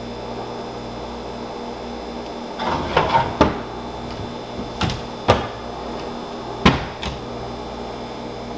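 Wooden kitchen cabinet doors being opened and closed and items shifted on the shelves: a scattering of knocks and clunks starting about three seconds in.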